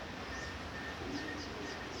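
Light rain falling steadily, with repeated short, high, descending chirps and a regular pulsed call from small animals over it. No thunder is heard.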